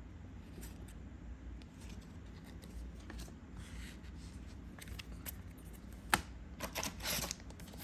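Trading cards being handled and sorted: faint scattered clicks and light rustles of card stock, with one sharper tap about six seconds in and a short rustle near the end.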